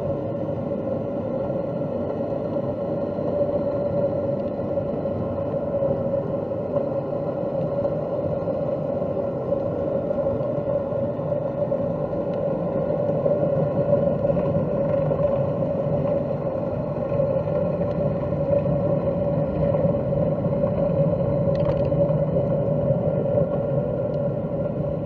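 A steady droning hum at a constant pitch over a dense low rushing noise, unchanging throughout.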